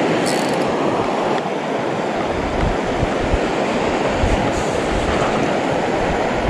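River water rushing steadily over rocks. From about two and a half seconds in, wind buffets the microphone in gusts.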